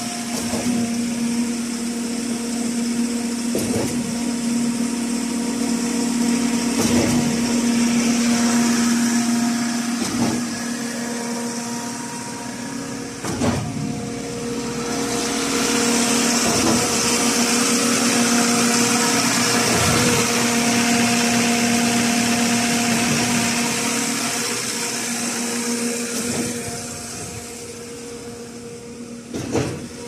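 Trailer-mounted concrete pump running, its engine and hydraulics giving a loud steady hum with a high hiss over it. Sharp knocks come roughly every three seconds.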